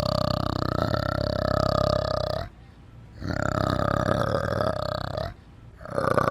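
An animal giving long, rasping calls: one running into the first two and a half seconds, a second of about two seconds after a short pause, and a third starting near the end.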